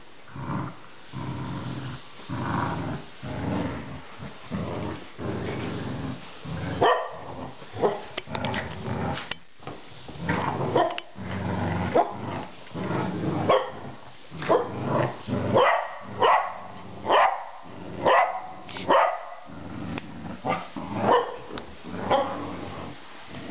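Dogs play-fighting: several seconds of continuous low growling, then a long run of sharp barks, about one or two a second, with growls between them.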